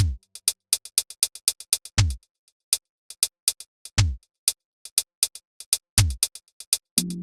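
Live-coded electronic drum-machine pattern: a deep synthesized kick that drops in pitch every two seconds, with quick hi-hat ticks at about four a second. Near the end a sustained synth drone chord comes in.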